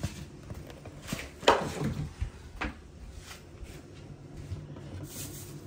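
A few short knocks and clatters of containers and a drawer being moved about inside an open refrigerator, the loudest about one and a half seconds in.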